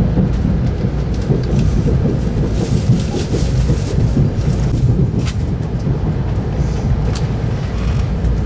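Steady low rumble of a moving vehicle, with a few light clicks and rattles on top.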